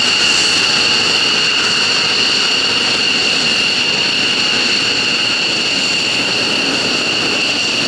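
F-15J Eagle fighter's twin turbofan engines running at taxi power as the jet rolls slowly along the taxiway: a loud, steady jet whine with high-pitched tones over a broad rushing noise.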